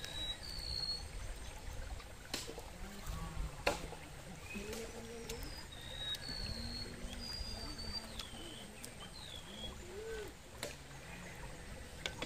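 Riverside ambience: water trickling, short whistled bird calls scattered throughout, and faint distant voices, with a few sharp clicks.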